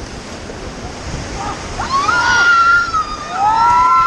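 Rushing white-water river, with people on the raft breaking into long, held whooping cries from about halfway in, one voice sliding up and holding.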